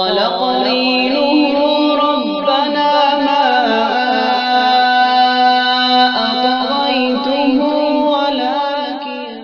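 A single voice in a long, melismatic chant, holding and ornamenting notes with a wavering pitch and fading out near the end.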